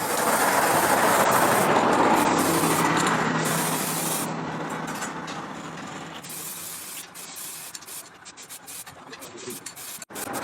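Abrasive sanding, a steady rasping that is loudest in the first few seconds, then fades and breaks up into scattered short scrapes and clicks.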